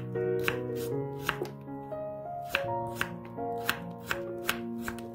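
Chef's knife slicing through Korean radish (mu) onto a wooden cutting board, a sharp knock with each cut, about two to three cuts a second with a short pause in the middle. Background music plays underneath.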